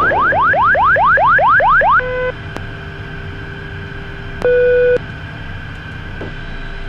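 Cockpit aural warning tones: a rapid series of rising electronic sweeps, about four a second, that stops about two seconds in. Two short steady tones follow, one right after the sweeps and a longer one about half a second long later on, over a faint steady hum.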